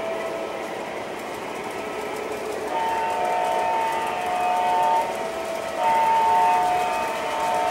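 O gauge model diesel locomotives running along three-rail track with a steady whir of motors and wheels; from about three seconds in, a locomotive's sound-system horn sounds in long blasts.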